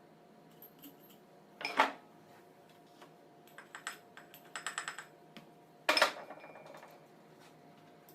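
Metal parts and hand tools being handled during starter motor repair: clinking and clicking, with two loud sharp knocks about two seconds and six seconds in and a quick run of clicks just before the second knock.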